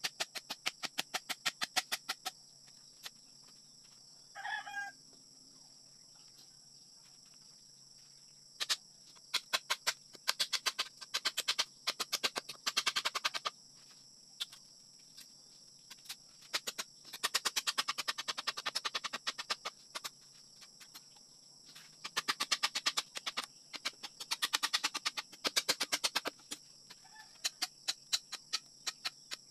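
Hand saw cutting through a green bamboo post in bursts of quick strokes, each burst a few seconds long. A chicken clucks once about four seconds in.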